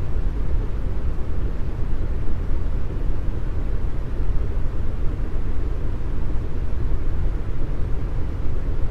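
Steady deep brown noise, an unbroken even hiss with most of its strength in the bass and little in the highs.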